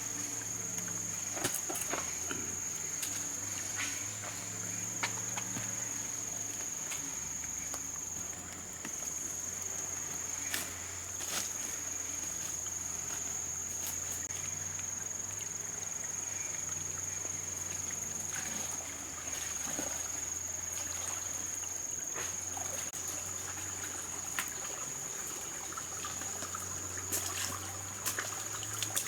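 Insects droning in a steady high-pitched tone, with scattered clicks and knocks.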